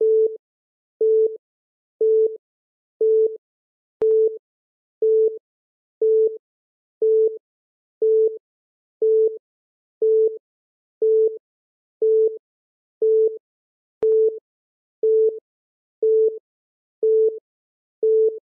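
Countdown timer beeping once a second: a short electronic beep at one steady mid pitch, evenly spaced, marking each second counted down. A faint click comes twice, about ten seconds apart.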